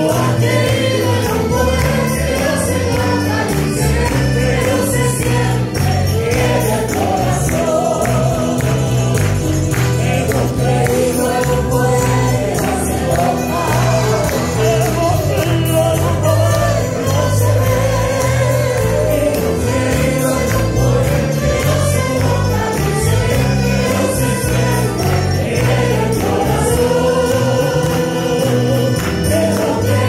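Congregation and choir singing a Spanish-language gospel chorus, led by a live church band with guitars and violins, with hand-clapping along to the beat. It plays loud and without a break.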